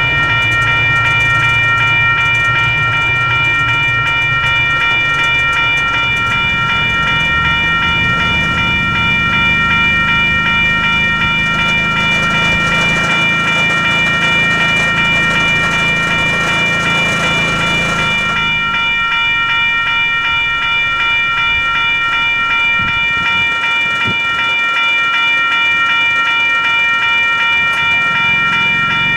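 Railroad crossing bell ringing steadily, a rapid pulsing ring. Under it the low rumble of a Metra diesel train runs until about two thirds through, then stops sharply, leaving the bell on its own.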